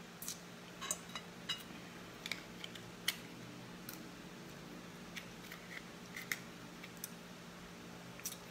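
Eating a cooked crab: scattered small cracks and clicks of the shell being broken and picked, and a metal spoon scraping meat out of the shell, with chewing in between. The loudest crack comes a little after three seconds in.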